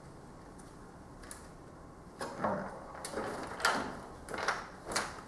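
The plastic back cover of a 2009 Vizio 55-inch LCD TV being set down and seated on the set, knocking and scraping. From about two seconds in there is a run of five or six clicks and knocks as it is lined up and pressed into place.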